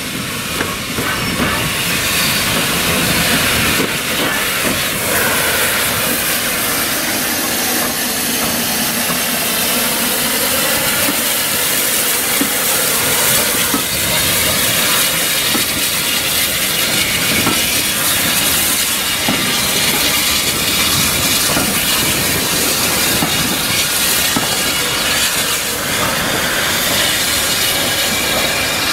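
0-6-0 saddle tank steam locomotive (a Hunslet Austerity) running along the platform with steam hissing, then its carriages rolling past on the rails.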